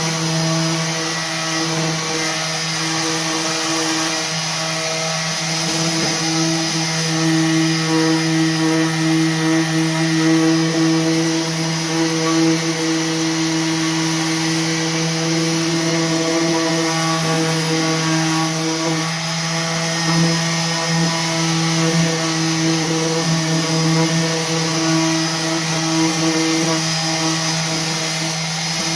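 Electric orbital sander running steadily against a painted wood drawer front, sanding through the paint to distress it: a constant motor hum with a high gritty hiss.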